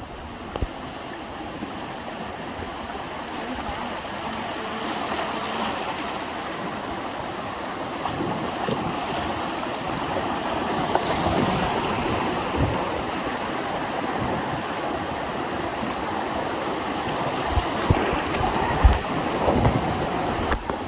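River rapids rushing around a raft in a steady rush of water that slowly grows louder, with a few sharper splashes near the end.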